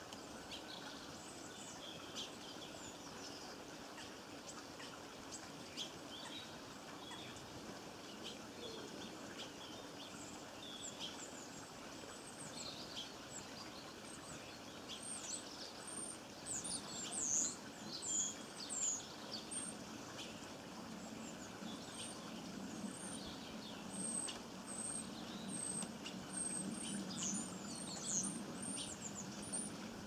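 Small garden birds calling: short, high chirps and twitters, sparse at first and busier in the second half, over a steady background hiss.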